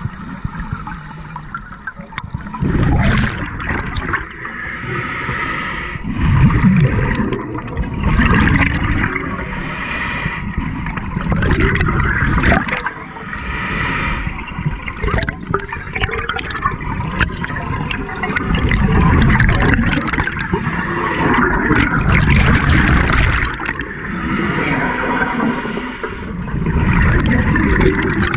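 Scuba diver breathing through a regulator underwater: bubbles gurgling out on each exhale, alternating with a hiss on each inhale, repeating every few seconds.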